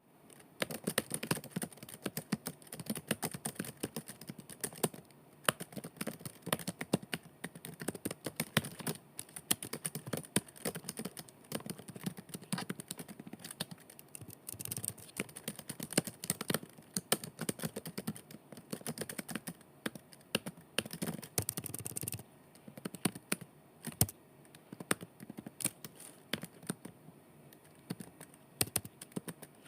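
Continuous fast typing on a computer keyboard: dense, irregular key clicks that thin out for a couple of seconds about two-thirds of the way through.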